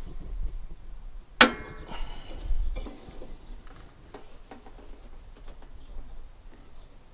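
A metal hand tool clanking against metal parts of a garden tractor: one sharp ringing clank about a second and a half in, then lighter knocks and rattles.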